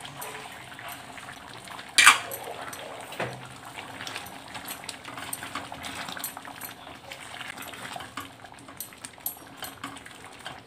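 A spatula stirring thick curry in a steel pot, scraping and clicking against the sides, with one loud clank against the metal about two seconds in.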